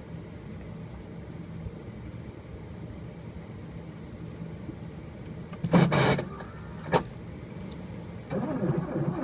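Mercedes-Benz W115 diesel on a cold start: a low steady hum while the glow plugs preheat, a loud burst of noise about six seconds in and a short sharp one a second later, then from about eight seconds the starter cranking the cold engine.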